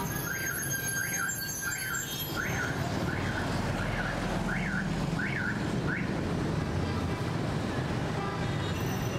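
A bus's engine running with a steady low rumble while an electronic alarm chirps over it, each chirp rising and falling in pitch, about nine in all at a little under one and a half a second, stopping about six seconds in.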